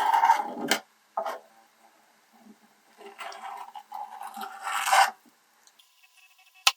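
Rough scraping strokes, three passes with pauses between them, consistent with old paint being scraped off the metal tackle box, and a sharp click near the end.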